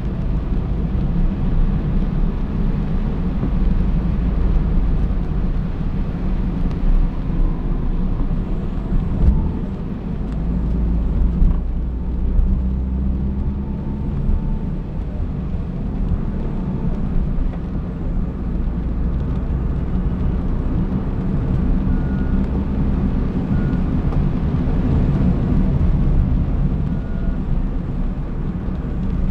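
Steady low rumble of a car driving, engine and tyre noise on a wet road heard from inside the cabin through a windshield-mounted dash camera's microphone.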